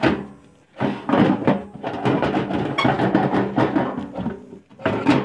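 ECM blower motor being worked out of its sheet-metal blower housing: a rapid run of knocks, clunks and scraping rattles of metal against the housing, easing off briefly before one more knock near the end.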